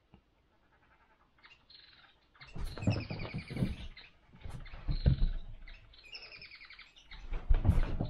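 An electronic cat toy chirping like a bird: quick, high, trilled chirps in two bursts, each with heavy low thumps underneath.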